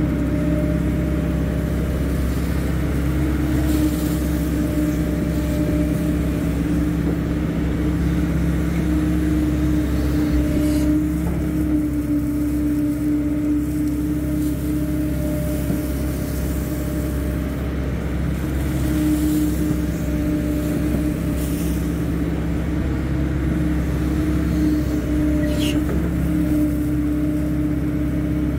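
Hydraulic excavator's diesel engine running steadily under working load while digging, with a few faint knocks.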